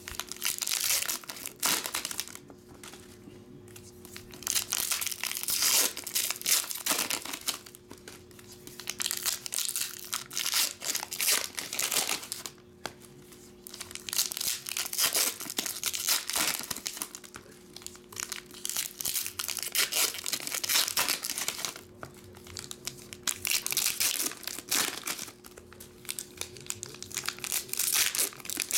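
Foil Pokémon booster pack wrappers being torn open and handled, crinkling in repeated bursts with short quieter gaps between packs.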